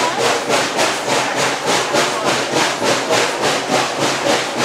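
Steam locomotive under way, its exhaust chuffing in an even rhythm of about four beats a second.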